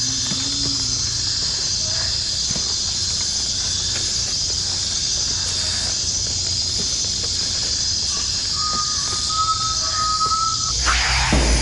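Steady high-pitched chorus of rainforest insects such as crickets, over a low hum. A single steady whistled tone is held for about two seconds near the end, and just before the end a deep rumble swells in.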